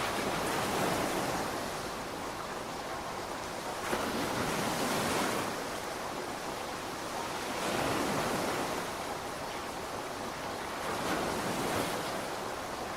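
Steady rain hiss that swells and eases about every three to four seconds.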